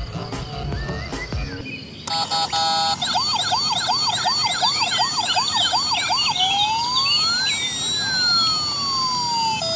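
Electronic ambulance siren. It cuts in about two seconds in as a fast repeating yelp, changes to one slow rising-and-falling wail, and switches to a two-tone hi-lo pattern near the end.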